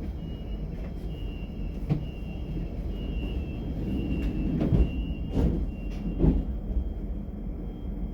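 DB class 425 electric multiple unit running, heard from inside: a steady low rumble with a thin high whine in short steps, and a few knocks in the middle, the loudest three about a second apart.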